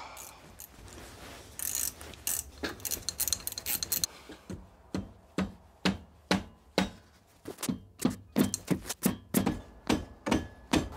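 Hand ratchet wrench clicking in repeated short back-and-forth strokes, loosening the 7/16 screws at the base of a British Seagull outboard's pull-start cover. The clicks come in quick clusters at first, then settle into an even run of about two a second.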